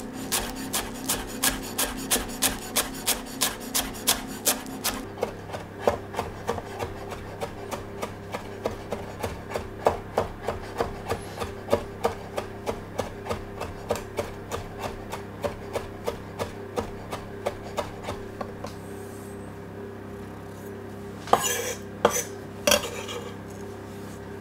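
Chef's knife rapidly chopping fresh coriander on a wooden cutting board, about three strokes a second in a steady rhythm, thinning out after about eighteen seconds. Near the end come three louder, sharper knocks of the knife on the board.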